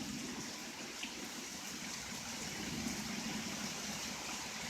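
Rain coming down steadily, an even hiss with no thunder.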